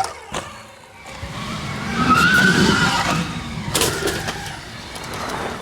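Stark Varg electric motocross bike riding off: a rising electric motor whine under a loud rush of tyre and dirt noise, easing off near the end.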